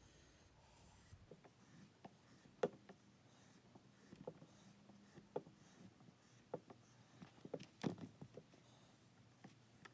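Faint, irregular light taps and rubs of a push-dagger blade being worked on a strop, about a dozen soft ticks spread unevenly, the sharpest about two and a half and eight seconds in.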